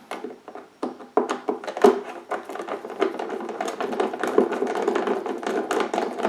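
Hands working small screws and a plastic cover off the base of a power washer: irregular taps and clicks, growing busier after about two seconds.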